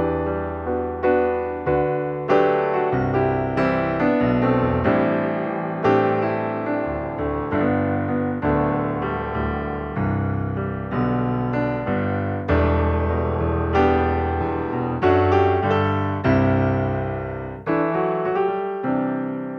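Background piano music: a slow, gentle melody of struck notes over sustained chords.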